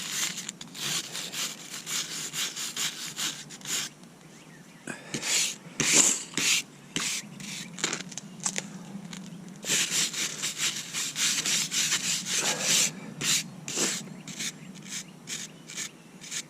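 Wire brush scrubbing out a crack in a concrete driveway, with repeated rough back-and-forth strokes that pause briefly about four seconds in.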